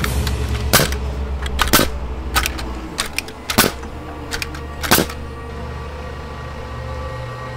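A handful of sharp knocks at uneven intervals, the last strong one about five seconds in, over a low steady hum.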